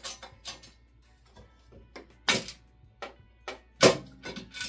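Aluminium lead-screw guard being worked off a desktop CNC router's Y-axis rail: light clicks and two sharp knocks about a second and a half apart, the second the loudest. Background music plays underneath.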